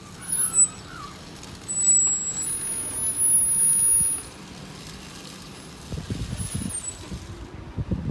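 Garbage truck, a CCC LET2 cab with a McNeilus ZR body, working a residential street some way off: its engine is running, with a high air-brake squeal and hiss from about two to four seconds in and a low, uneven rumble from about six seconds in.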